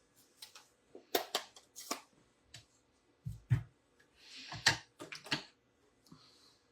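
Scattered clicks and taps of stamping supplies being handled as a stamp is inked on an ink pad. There is a soft thump about three seconds in and a short rustle about four seconds in.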